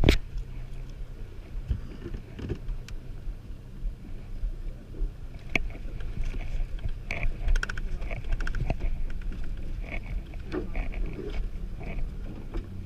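Boat motor running steadily at low speed while the boat is manoeuvred, a low even hum, with scattered light clicks and knocks on the boat.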